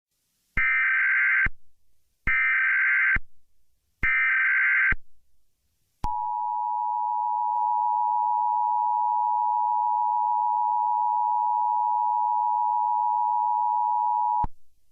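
Emergency Alert System test signal: three short bursts of the warbling SAME header data tones, about a second each, then the two-tone attention signal, a steady two-pitch tone held for about eight seconds before it cuts off.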